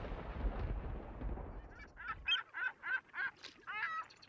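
A low rumble dies away over the first two seconds. Then geese honk in a quick run of short calls, about four a second.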